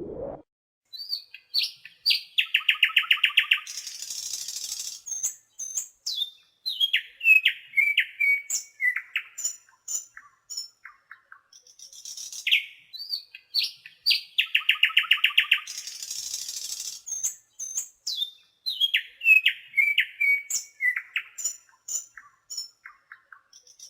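Common nightingale (Luscinia megarhynchos) singing: a varied run of loud whistles, fast trills of rapidly repeated notes and high rasping phrases, separated by short pauses. The same sequence of phrases is heard twice.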